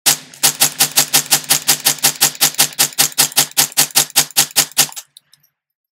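Faxon FX22 semi-automatic .22 LR rifle emptying a 25-round magazine of CCI standard-velocity ammunition in rapid fire, about five shots a second, stopping about five seconds in. Every round cycles with no feed or chambering malfunction.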